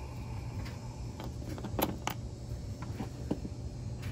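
Light scattered clicks and taps of small carburetor parts being handled by hand, over a steady low hum.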